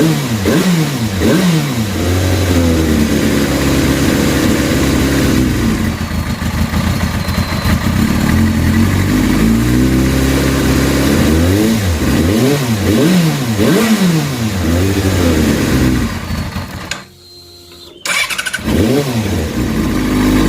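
2005 Yamaha R6's fuel-injected inline-four engine blipped up and down several times between steadier stretches, revved to make an erratic, over-rich idle settle into a proper tickover. Near the end the sound drops sharply for about a second and then returns.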